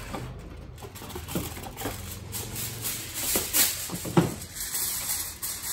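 Aluminium foil crinkling and rustling in irregular bursts as it is pressed over a roasting tray, with a sharper, louder crackle about four seconds in as a sheet is pulled off the roll.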